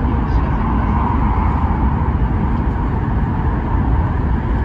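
E2 Series 1000 Shinkansen running, heard inside a passenger car: a steady low rumble and rolling noise from the wheels and track.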